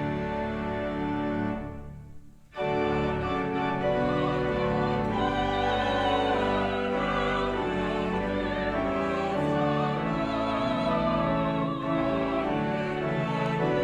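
Organ accompanying singing voices with vibrato on held notes. The music breaks off briefly about two seconds in, then resumes at full level.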